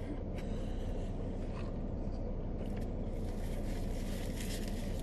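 Steady low rumble of a car idling, heard from inside the cabin. About three seconds in a soft rustling hiss rises and lasts a couple of seconds.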